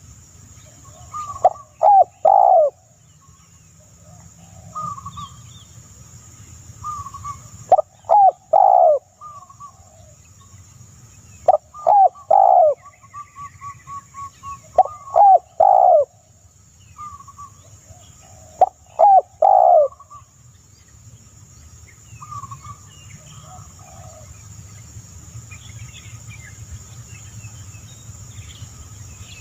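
A dove cooing in repeated phrases of three or four falling notes, one phrase about every three to four seconds, with short higher single notes between phrases. A steady high insect drone runs underneath.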